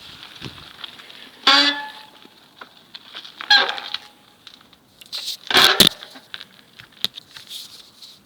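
GT Avalanche 1.0 hydraulic disc brakes squealing three times as they are applied, the last squeal the longest and loudest. The brakes squeal badly and grip weakly after motor oil was used in the hydraulic system; the owner does not know the cause.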